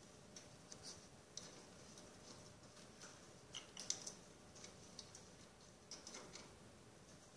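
Faint, scattered clicks and taps of a parrot's beak and claws gripping branches and a ring as it climbs through a potted tree, with a small cluster of taps about halfway through and another near the end.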